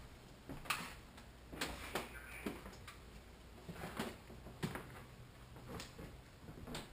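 Footsteps on a wooden floor: soft knocks and scuffs about once or twice a second, over a low steady hum.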